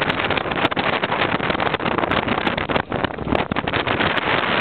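Motorboat engine running under way, with a dense, steady rush of wind and water noise.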